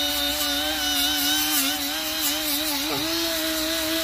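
Cordless Milwaukee angle grinder spinning a rubber eraser (cookie) disc against a steel exhaust flange, scrubbing off old gasket maker. It is a steady motor whine that wavers and briefly dips in pitch about three seconds in, then recovers.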